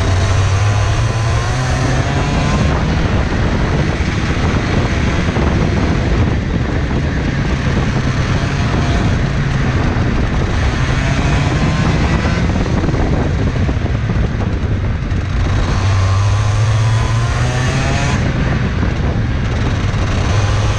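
IAME 125cc two-stroke OK-Junior kart engine at full racing load, its revs climbing on the straights and dropping as the kart brakes for corners, several times over.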